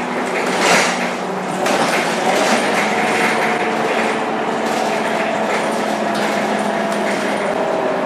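Scania K230UB bus's five-cylinder diesel engine and ZF 6HP502C automatic gearbox pulling under acceleration, heard from inside the passenger cabin: a steady drone whose pitch slowly rises, over road noise and body rattle. A short louder burst of noise comes under a second in.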